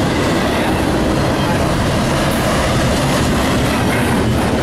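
Double-stack intermodal freight cars rolling past on the rails: a steady, loud rumble of steel wheels on track.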